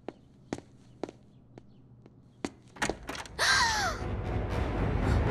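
Cartoon sound effects: faint, evenly spaced clicks about two a second, then about three and a half seconds in a sudden loud swish with a falling pitch glide as dramatic music comes in.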